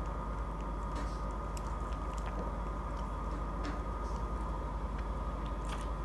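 Faint clicks and light rustling from hands handling a burger and its paperboard box, over a steady background hiss with a faint high whine.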